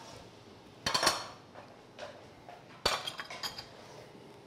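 Kitchen cookware noises as a pot is stirred with a wooden spoon: a short scrape about a second in, then a sharp clink a little before three seconds followed by a few lighter clinks.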